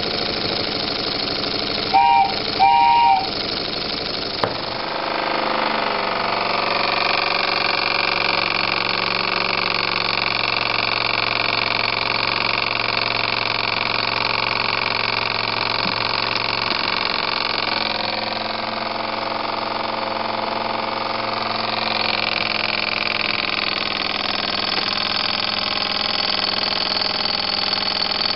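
Homebuilt double-acting oscillating steam engine running under steam, with a steady hiss of steam and the chuff of its running. Two brief pitched toots come about two seconds in, and about five seconds in the running sound grows slightly louder and settles.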